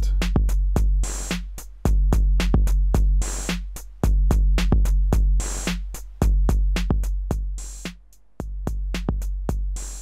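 808-style drum machine loop driven through the Elektron Analog Heat MKII's analog Mid Drive circuit. Long, deep kick tones land about every two seconds, with quick hi-hat ticks and snare hits between them.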